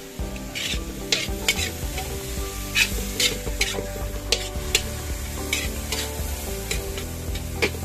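Stir-frying in a pan: a spatula scraping and knocking against the pan over a steady sizzle, the strokes coming irregularly, one or two a second.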